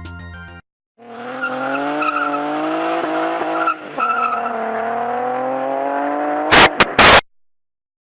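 A car's pitched drone, wavering slightly in pitch and cut briefly about four seconds in, ending in three loud, short noisy blasts.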